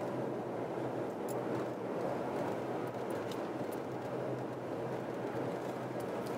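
Steady road noise inside a moving car's cabin: tyre rumble on the asphalt with a low, even engine hum, unchanging throughout.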